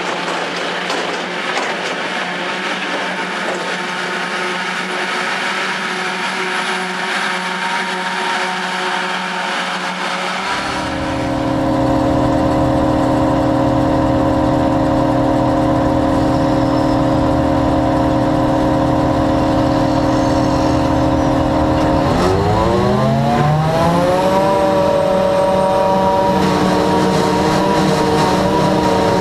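A John Deere self-propelled forage harvester at work chopping grass silage. It starts as an even, distant machine noise. About ten seconds in it becomes a loud, steady drone heard from on the machine. Around twenty-two seconds in the drone's pitch rises over a couple of seconds as the machine speeds up, then holds steady.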